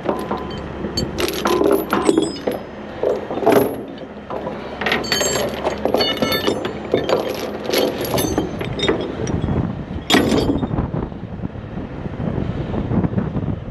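Irregular metallic clinks and clanks, several with a short ringing after the strike, over a low steady rumble.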